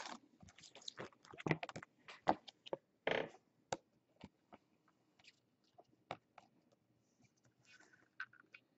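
Hard plastic trading-card holders clicking and tapping as they are handled and set down on a table, with a brief rustle of handling about three seconds in.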